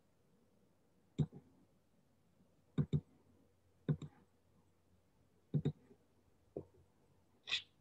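Scattered sharp clicks, several in quick pairs, then a short hiss near the end.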